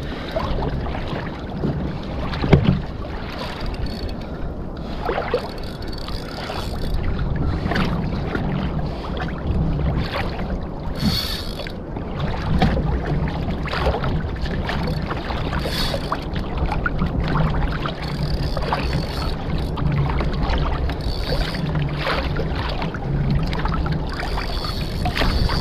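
Water splashing and lapping against a kayak's hull as it moves, over a steady low rumble that swells every second or two, with scattered small knocks.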